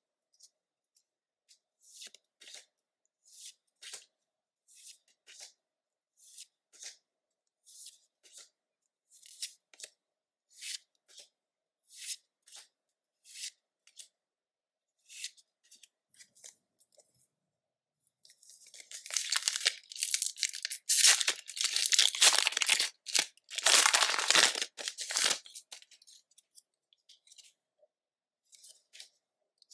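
Hands working Pokémon card packaging: short, evenly spaced papery rustles about once a second, then about seven seconds of loud tearing and crinkling of wrapper, then a few faint rustles near the end.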